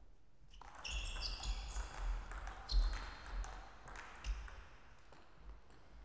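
Sports shoes squeaking on the rubber court floor as table tennis players move about, a string of short high squeaks starting just under a second in, with a few sharper knocks among them, the loudest about three seconds in.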